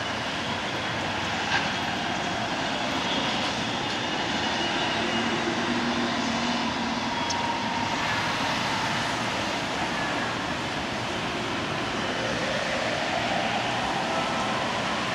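Yamanote Line electric commuter trains running on the elevated tracks, wheel and motor noise with a faint motor whine over a steady hiss of rain and city traffic.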